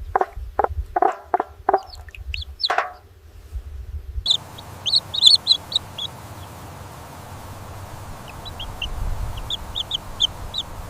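A chicken clucking, about half a dozen short clucks. About four seconds in, the sound cuts abruptly to a steady outdoor hiss with scattered short, high bird chirps.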